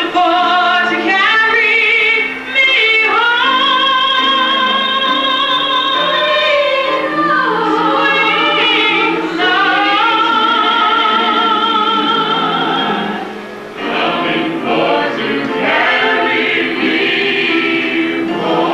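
Show-tune singing from a stage musical: several voices holding long notes with vibrato over musical accompaniment.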